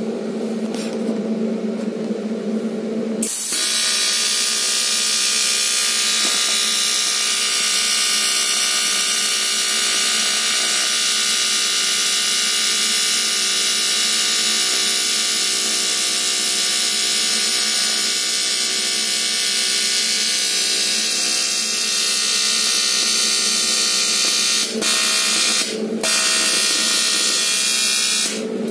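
AC TIG welding arc on a cast aluminium wheel at 150 amps: a steady, harsh buzz that starts suddenly about three seconds in and runs unbroken, then breaks off briefly a few times near the end as the arc is stopped and restarted.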